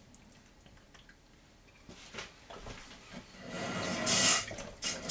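Quiet for about two seconds, then running water rises to a loud, steady rush in the last second and a half.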